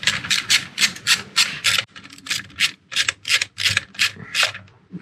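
Hand-tool work on an engine: a quick, uneven series of short rasping strokes, about three or four a second.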